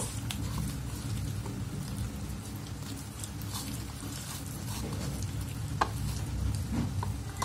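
A hand rubbing wet masala paste into raw chicken drumsticks on a ceramic plate: soft, wet squishing and smearing, with a sharp click about six seconds in.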